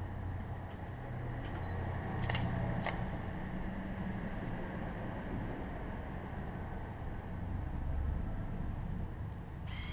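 Steady low rumble of room noise, with two sharp clicks a little over two seconds in, about half a second apart, and a short high squeak at the very end.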